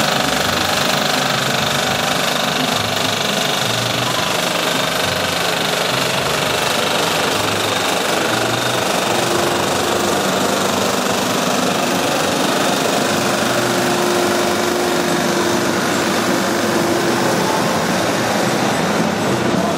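Diesel engine of a modern farm tractor running steadily as the tractor drives slowly past.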